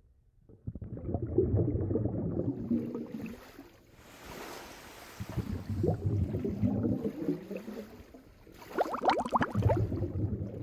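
Calm ocean water lapping and gurgling in three gentle surges, with small sloshing splashes near the end.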